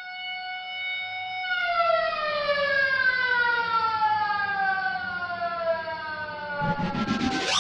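A siren-like wail holds one pitch, then winds slowly down from about a second and a half in. Near the end, a rising whoosh swells up under it.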